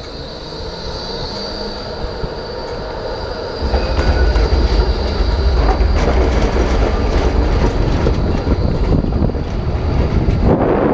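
Melbourne tram running on street track close by, with a thin steady wheel squeal over the first few seconds. A louder low rumble sets in about four seconds in, as the bike moves off alongside the tram.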